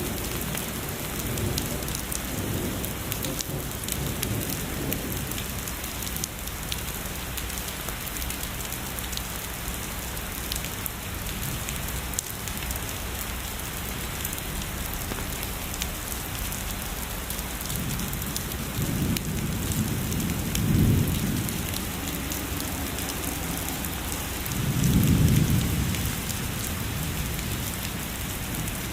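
Heavy rain falling steadily, a dense hiss of many small drop ticks, with low rolls of distant thunder: a soft one near the start, a longer one about two-thirds of the way through, and the loudest near the end.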